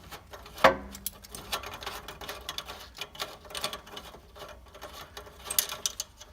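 A ratchet wrench on the exhaust bolts: a sharp crack with a short metallic ring under a second in as a bolt breaks free, then quick, uneven ratchet clicking as it is run off.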